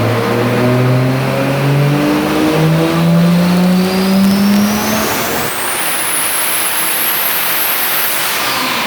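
Rebuilt turbocharged Toyota 2JZ inline-six revving hard, its note climbing steadily for about five seconds. The engine note then drops away, leaving a thin high-pitched whine that rises, holds and falls off near the end.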